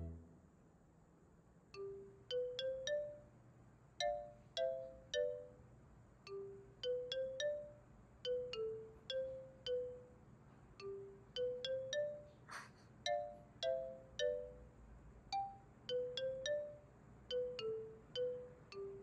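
Background music: a slow, gentle melody of short plucked or chime-like notes that fade quickly, about two a second. A brief noise sounds once, about twelve seconds in.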